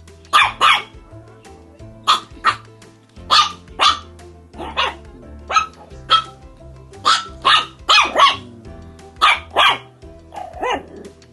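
A dog barking loudly and repeatedly, often in quick doubles, about sixteen barks, ending with a higher, sliding yelp. Background music plays underneath.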